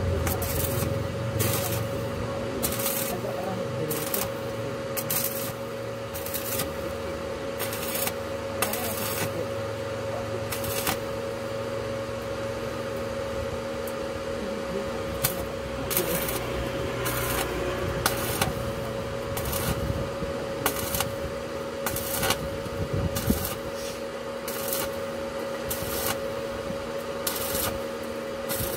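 Stick (arc) welding on a truck's steel exhaust pipe: the arc crackles and hisses in short bursts, struck over and over as the pipe is tacked, with a steady hum beneath.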